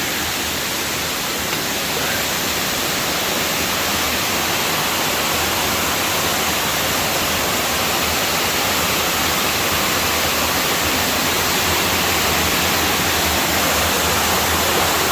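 Waterfall rushing: a loud, steady roar of falling water that grows slightly louder near the end.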